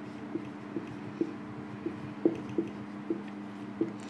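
Marker pen writing on a whiteboard: a run of light taps and short squeaks, about three a second, over a steady low hum.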